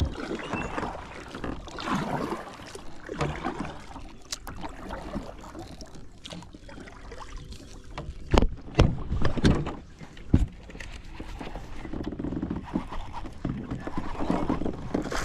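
Kayak paddle strokes dipping and splashing in calm water about once a second. Just past the middle comes a handful of hard, loud knocks against the kayak as the paddle is laid down, and then the paddling sounds resume.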